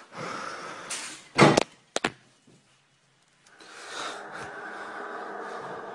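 A window being opened, with a few knocks and clatter, then after a break a steady drone of several held tones comes in from outside. This is the unexplained 'strange sound' that woke the man, heard through the open window.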